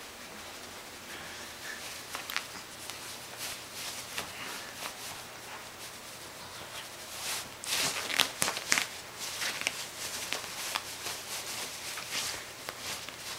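Bedsheet rustling and scraping as a cat grabs, bites and kicks at a hand working under the sheet, with a louder flurry of rustles about eight seconds in.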